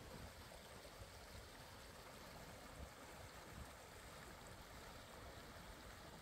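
Near silence: a very faint, steady rush of water from a stream or small waterfall.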